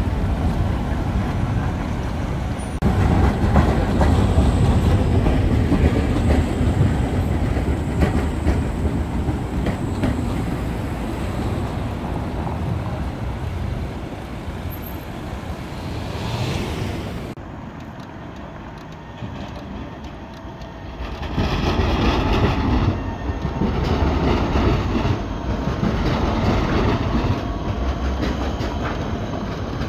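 Electric trams running on street rails among car traffic, with the steady noise of wheels and motors. In the second half a low-floor tram passes close by, louder, with a high whine from its wheels and motors.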